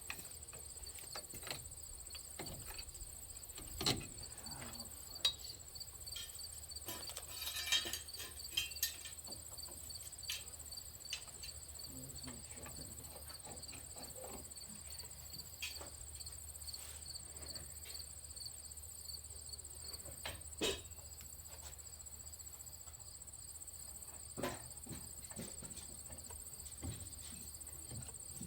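Insects chirring steadily, with an evenly pulsing chirp and a high steady whine, while hand tools clink and knock now and then on the truck's front brake parts, the loudest knocks about 4, 5, 8 and 20 seconds in.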